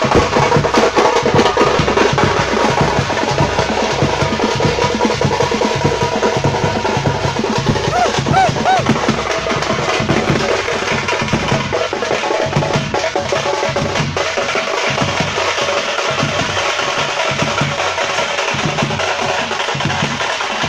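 Thappattai (parai) frame drums beaten by a drumming troupe in a fast, dense, steady rhythm.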